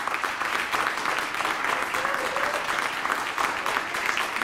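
Church congregation clapping their hands together, many overlapping claps at a steady level, in answer to a call to praise by clapping.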